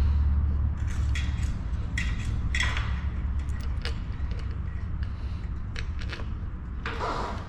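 Small steel bolts clinking and tapping against the metal engine cover as they are set into its holes and started by hand, a scatter of short irregular clicks over a low rumble in the first few seconds.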